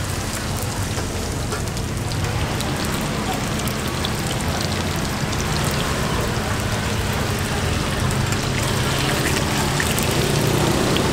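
Street-stall ambience: a steady hiss over a low hum, with indistinct voices in the background, growing slightly louder near the end.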